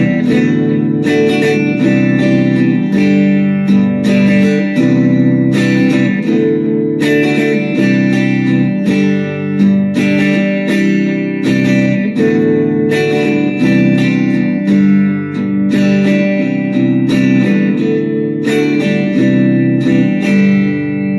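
Telecaster electric guitar being strummed through a run of chords, the last chord left ringing near the end. The guitar is holding its tuning now that new TUSQ string trees give the strings proper downward pressure on the nut.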